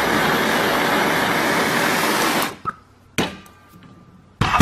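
Handheld gas torch flame hissing steadily while heat-tinting a stainless steel exhaust tip, cut off about two and a half seconds in. A few short knocks follow, then a loud clunk near the end.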